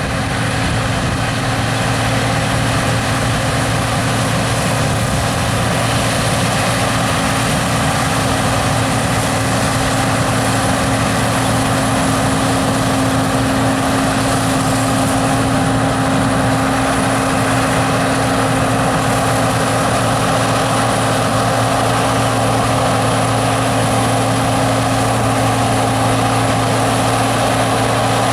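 John Deere 9760 STS combine harvester running steadily while combining spring barley: a constant loud engine and machinery drone with a thin high whine over it.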